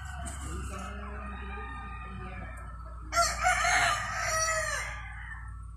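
A gamecock rooster crows once, loud and close, starting about three seconds in and lasting nearly two seconds. Before it, fainter calls of other chickens carry in the background.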